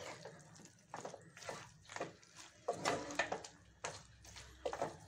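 Wooden spatula stirring and tossing chicken pieces in a nonstick pan: irregular knocks and scrapes of the spatula against the pan, thickest about three seconds in and again near the end.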